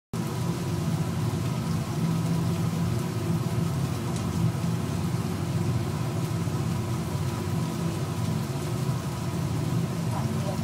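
Potato fries deep-frying in a fryer basket: hot oil sizzling and bubbling in a steady hiss over a low hum, cutting off suddenly at the end.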